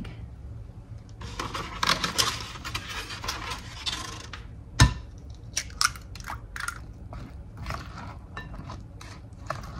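A spatula stirring thick muffin batter in a glass mixing bowl, with a run of irregular clicks and scrapes against the glass in the second half. Before it comes a rustling hiss of about three seconds and one sharp knock.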